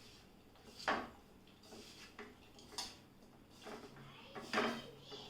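Sliced onions, gram flour and spices being mixed together in a bowl: faint rustling with a few sharp knocks against the bowl, the loudest about a second in.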